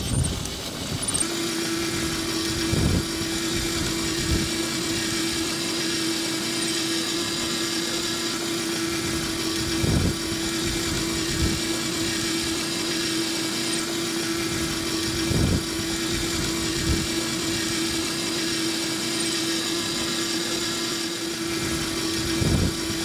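Electric motor of a battery-powered ride-on toy Mercedes-Benz car running with a steady whine, its plastic wheels rolling on concrete with a rushing noise. The whine starts about a second in, and a few short knocks come now and then.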